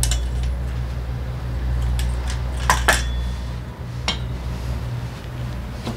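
Metal scooter clutch and drive-pulley parts clinking and knocking as they are handled and set down: a few sharp clinks, the loudest two close together about three seconds in and another about a second later. A steady low hum runs underneath.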